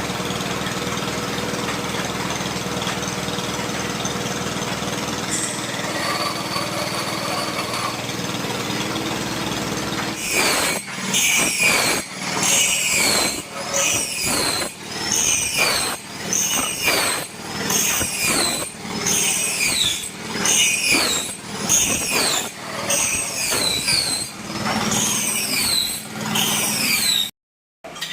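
The small engine of a well-drilling machine runs steadily. About ten seconds in, the engine hum stops and a regular squeaking takes over, roughly one squeak a second, each falling in pitch, as metal parts of the drilling rig rub in rhythm. The sound cuts off abruptly near the end.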